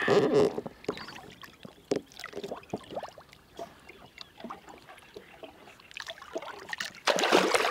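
Water splashing and sloshing against a boat's side as a pike is held in the water and released, with small splashes throughout. There is a loud splash at the start and another about seven seconds in, as the pike kicks free and darts off.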